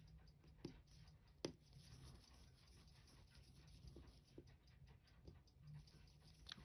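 Near silence with a few faint, small clicks of watchmaker's tools on the parts of a Seiko 6139 chronograph movement during disassembly, the sharpest about a second and a half in.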